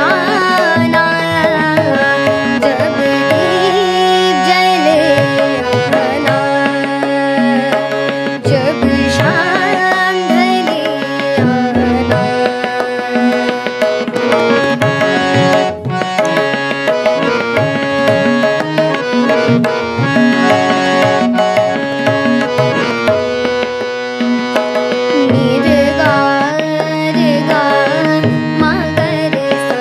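A young girl singing a Hindi film song in light classical style to her own harmonium, with a boy accompanying on tabla.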